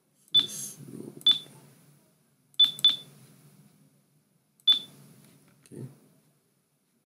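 Five sharp mouse clicks, each with a short ringing tone and a brief tail. Two come in quick succession. They key letters and Enter on an HMI simulator's on-screen keyboard. A softer low knock follows about a second after the last.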